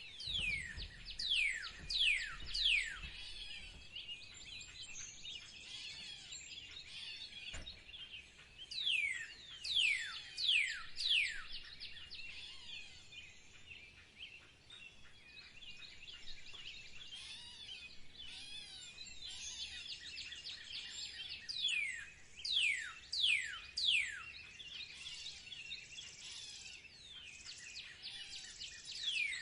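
Birdsong chorus: many birds chirping steadily, with a bird giving a run of four or five loud, quick falling whistles roughly every ten seconds.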